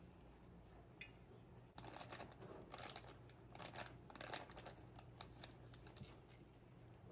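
Metal spoon tapping and scraping against a glass bowl as spice powder is tipped onto ground beef: a run of light clicks and ticks from about two seconds in, the sharpest near the four-second mark, over a faint steady hum.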